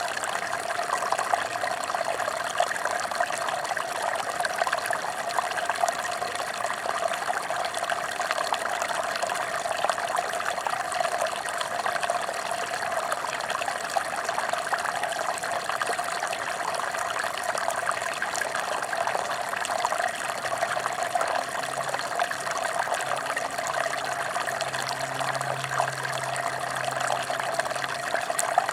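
Mountain stream running steadily, a constant even rush of water with no breaks.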